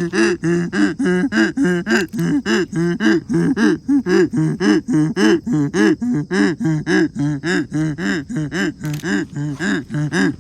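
Donkey braying: a long run of quick, even hee-haws that swing back and forth between a higher and a lower pitch, about four calls a second.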